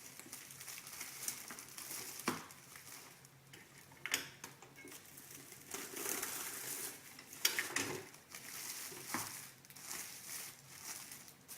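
A 16-inch impulse sealer closing the last side of a shrink-film bag: a few sharp clicks as the sealer arm comes down, with plastic film crinkling between them as the excess film is torn off.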